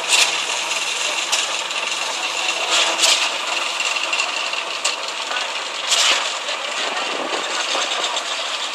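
Construction-site noise during a concrete pour: a steady din from concrete pump and mixer truck engines, with sharp knocks or clanks every second or two.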